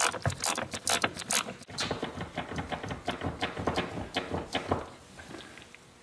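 Ratchet wrench clicking rapidly, several clicks a second, as a bolt on the evaporator housing at the firewall is worked loose. It stops near the end.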